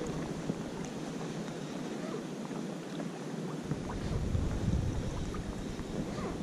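Gusty wind buffeting the microphone over choppy lake water, an even rushing noise; low rumbling buffets come in a little past halfway as a gust picks up.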